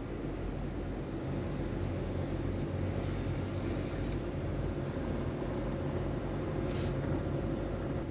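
Inside a car's cabin while driving slowly: a steady low rumble of engine and tyres on pavement, with a brief high hiss about seven seconds in.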